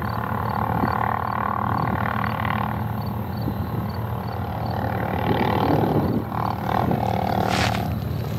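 Air horn of an approaching Union Pacific GE ES44AC lead locomotive sounding a chord in several blasts: a long one about a second in, then a longer run from about five seconds in that breaks into shorter blasts near the end. A steady low rumble lies underneath throughout.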